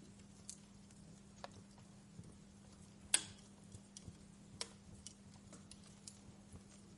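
Wood fire crackling: sparse sharp pops and snaps, one much louder pop about three seconds in, over a faint steady low hum.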